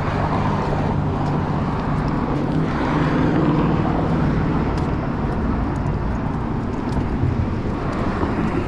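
Road traffic on a city street: cars driving past with a steady engine and tyre noise, swelling as a vehicle passes about three seconds in and again near the end.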